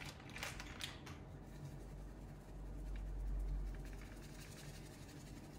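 Small plastic bag crinkling and rustling as it is opened and handled, with faint rustles as dried thyme is pinched out, mostly in the first second or so. A faint low rumble swells in the middle.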